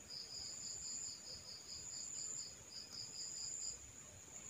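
Faint insect chirping: a rapid run of high pulses, about five a second, over a steady high trill. The pulses stop near the end while the trill goes on.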